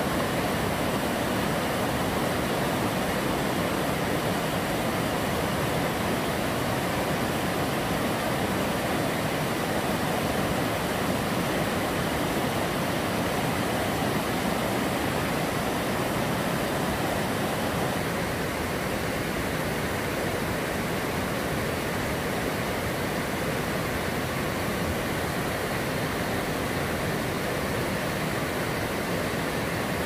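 Mountain stream rushing over boulders and small rapids: a steady, even rush of water that eases off slightly about halfway through.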